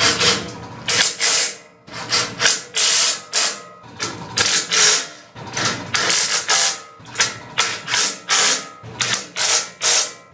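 Cordless impact driver running in short repeated bursts, its hammering rattle driving bolts on a sawmill bed's track rail plates.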